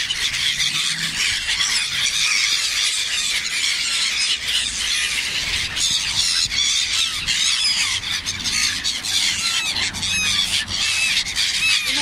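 A large flock of gulls calling together: many overlapping short, high cries with no break.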